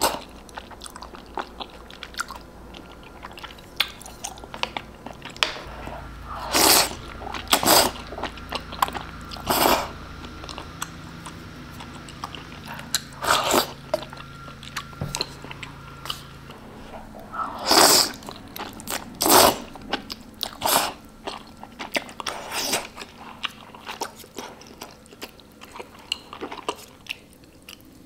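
Close-miked eating sounds of spicy ramen noodles in broth: loud, sudden slurps every few seconds, with chewing in between.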